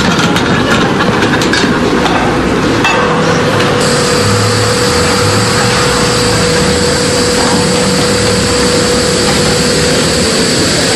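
Gas hissing loudly and steadily from a pressurised helium cylinder through the tubing to a breathing mask, with a steady whistling tone joining about three seconds in.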